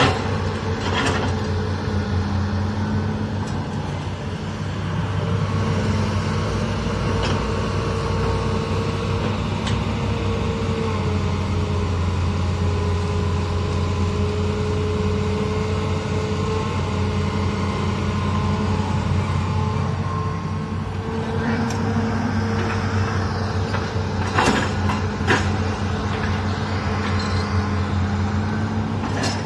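A Hitachi Zaxis 210 hydraulic excavator's diesel engine and hydraulics run steadily under digging load, with tones that shift a little in pitch as the arm and bucket work. A few sharp knocks come about a second in and again near the end.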